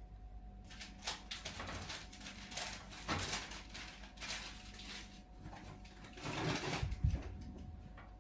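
Pet dwarf hotot rabbit sneezing again and again in a run of short, sharp puffs, with a louder burst and a thump about seven seconds in. The sneezing keeps on and won't stop.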